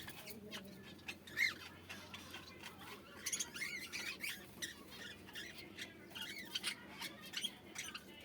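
A flock of caged birds chirping and squawking, with many short calls overlapping and a few sharp clicks; one louder call comes about a second and a half in.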